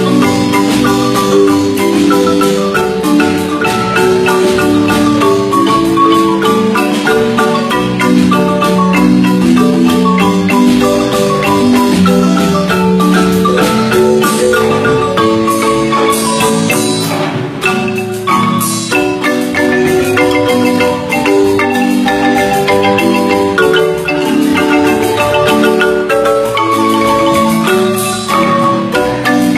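Guatemalan marimba music: many quickly struck wooden notes in a continuous melody over chords, with only a brief dip in loudness about two-thirds of the way through.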